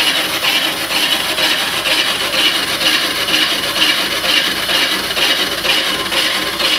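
On-car brake lathe turning a brake rotor on the car's hub, its cutting tips scraping across the rotor faces: a steady rasping that swells about twice a second.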